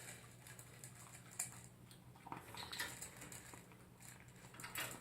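Dog eating its breakfast from a bowl: faint, scattered crunches and clicks of food and bowl.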